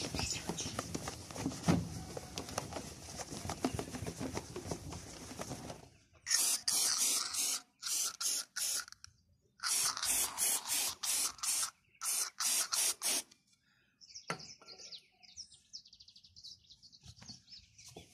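A cloth towel rubbing over a plastic headlamp lens. Then an aerosol can of glass-cleaning polish sprays the lens in a string of short hisses, about a dozen over some seven seconds.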